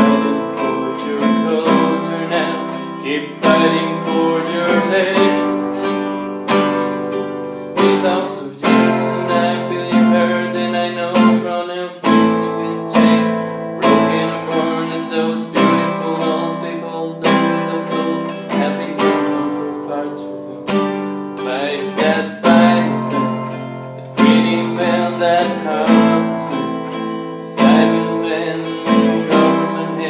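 Acoustic guitar strummed in a steady rhythm, full chords ringing between the strokes in an instrumental passage of a song.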